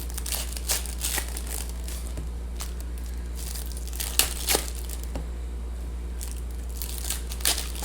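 Foil trading-card pack wrappers (2019 Bowman Chrome hobby packs) crinkling and tearing open in scattered sharp rustles, the loudest two about four seconds in, over a steady low hum.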